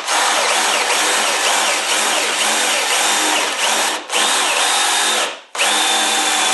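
Cordless drill spinning a 35 mm hinge-cutter (Forstner-type) bit as it bores the cup hole for a concealed hinge into an MDF cabinet door, with a high motor whine. The drill stops briefly about four seconds in and again about five and a half seconds in, then carries on cutting.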